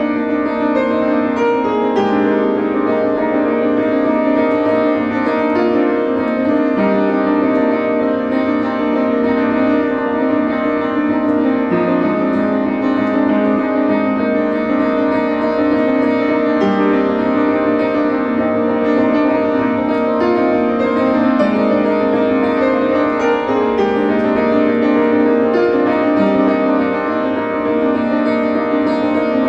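Upright piano played in slow, sustained chords, with the low bass note moving about every four to five seconds.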